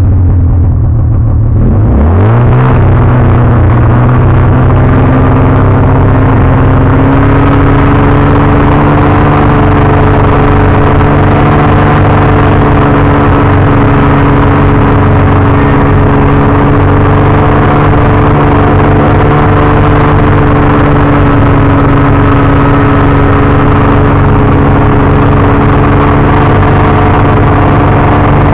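Snowmobile engine heard from the rider's seat, revving up about two seconds in and then running loud and steady at cruising speed along the trail.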